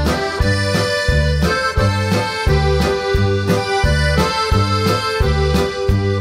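Background music: held melody notes over a steady, evenly repeating bass beat.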